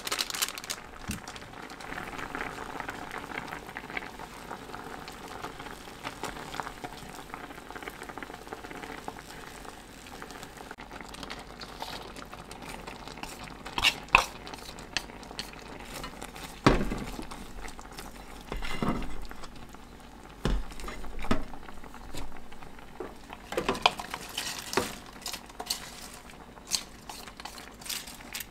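Pan of spicy tteokbokki sauce with ramen noodles bubbling on the hob, with scattered knocks and clatters as bean sprouts and then cabbage are tipped in from a bowl, most of them in the second half.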